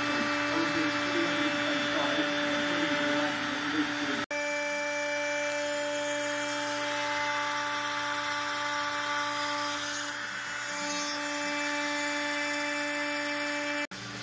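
Makita compact router running at speed as the spindle of a desktop CNC machine: a steady high whine over a constant rushing hum. The sound breaks off abruptly about four seconds in and again near the end.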